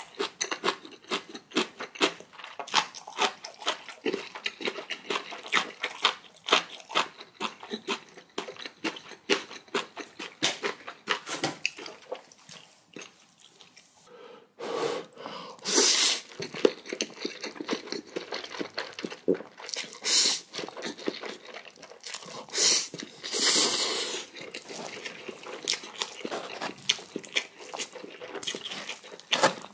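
Close-miked eating of noodles: rapid wet chewing and mouth clicks, a short lull about halfway, then several loud slurps of noodles.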